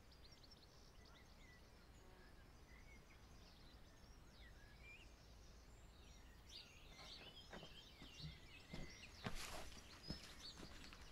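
Faint birdsong, short chirps and calls. From about two-thirds of the way in, a row of soft footsteps roughly every half second as someone walks up a garden path.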